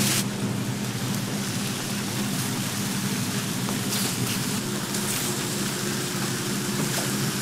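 Canned ham slices sizzling on a flat-top griddle: a steady hiss over a low, steady hum.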